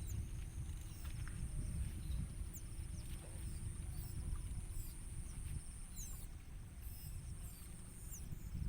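Outdoor ambience: a steady low rumble of wind on the microphone with a constant high insect drone, and scattered short, high chirps of small birds.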